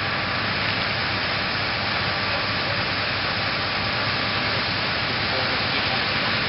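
Steady rushing hiss at a large building fire being fought with hose water jets, unbroken and even in level.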